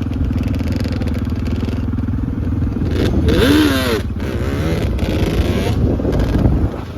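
Yamaha Banshee's twin-cylinder two-stroke engine running. About three seconds in, the revs climb and drop back in a short blip, then waver briefly before settling.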